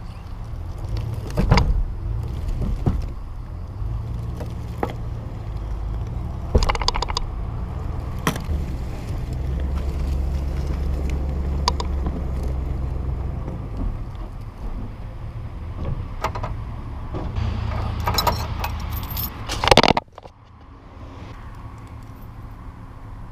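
A motor vehicle engine running with a steady low rumble, with metallic rattling and scattered knocks over it. The loudest knock comes about twenty seconds in, after which the rumble drops away sharply.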